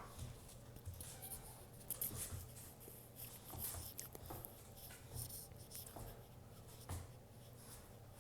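Faint, irregular scratching and light ticks, like a puppy's claws scrabbling as it moves about, over a low steady hum.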